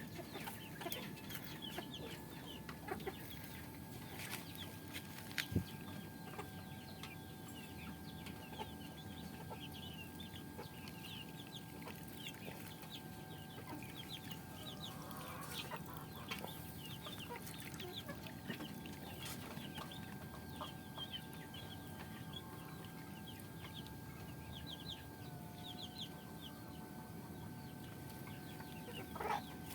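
Chickens clucking in the background, with many faint short chirps and a thin steady tone that shifts slightly in pitch near the end.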